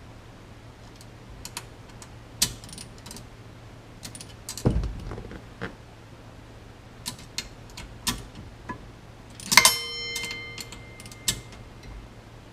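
Scattered light metallic clicks and clinks of small screws and a hand tool while the steering wheel's horn fiber disc is being fastened down. One louder clink near the end rings on for about a second.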